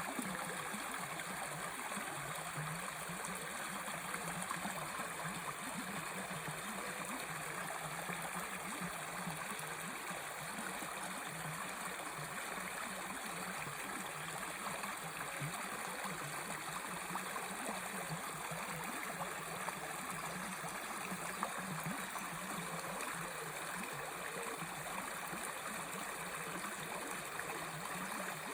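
Water of a small river flowing steadily, an even rush of stream noise.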